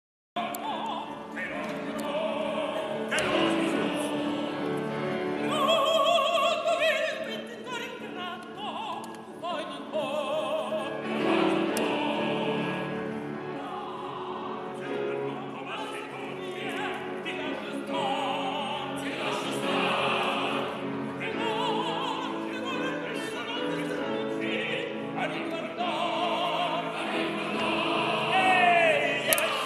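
Operatic singing with orchestral accompaniment, the voices holding notes with a wide vibrato.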